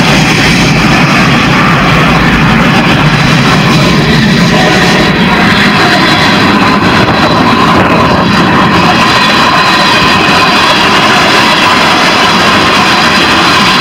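Freight train rolling past close by: a steady, loud roar of steel wheels on the rails.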